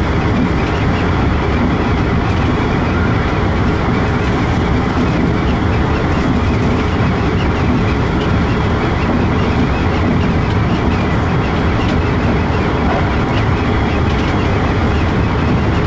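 Keikyu New 1000 series electric train running on the main line, heard from inside the front car behind the cab: a steady rumble of wheels on rail and running gear.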